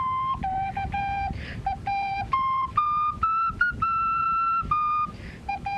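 A small flute played as a simple tune of short, separate notes stepping up and down, with one longer held note about halfway through and audible breaths between phrases.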